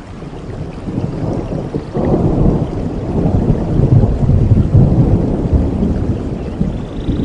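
Rolling thunder over steady rain: a low rumble that swells about two seconds in, is loudest in the middle, and eases off toward the end.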